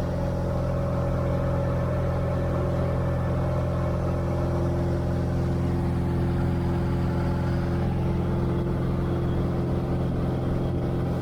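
A 1962 Cessna 150's four-cylinder Continental O-200 engine and propeller running at a steady speed.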